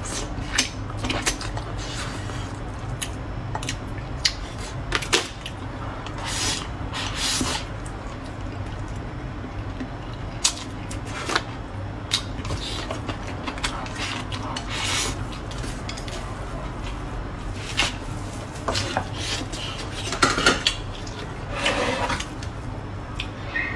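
Chopsticks clicking and scraping against a ceramic rice bowl again and again, with close-up chewing of rice and meat between the clicks.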